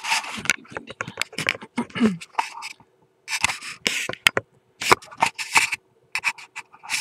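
Handling noise from a camera being picked up and repositioned: irregular rustling, scraping and knocking close to the microphone, over a faint steady hum.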